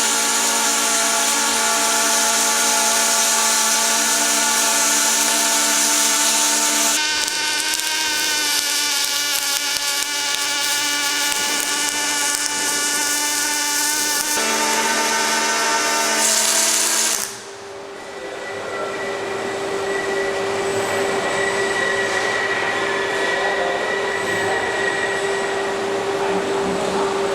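Steady machine whine of several held tones from industrial machinery, changing abruptly about seven seconds in and again around fourteen and sixteen seconds. Just after seventeen seconds it dips, then builds back up as a single steady whine over a hiss.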